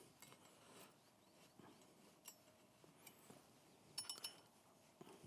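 Near silence, with a short cluster of faint metallic clicks about four seconds in from a 5 mm hex key working the rack's mounting bolts.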